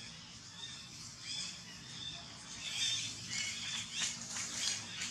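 Faint, high-pitched chirping and squeaking animal calls, in short scattered bursts that thicken from about a second in.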